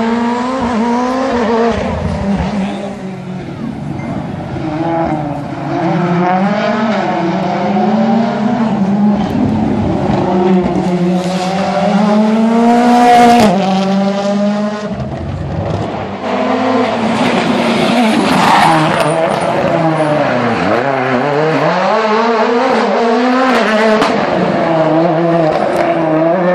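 Rally car engines at full race pace as several cars pass, the pitch climbing hard and dropping back again and again with gear changes and lifts, with tyre squeal as the cars slide through the corners.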